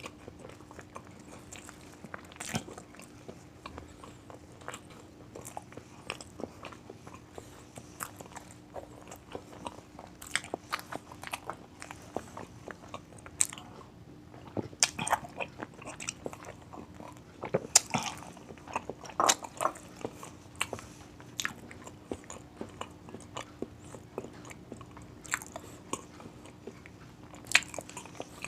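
Close-miked eating: a person biting and chewing food, with many irregular crisp crunches, over a faint steady hum.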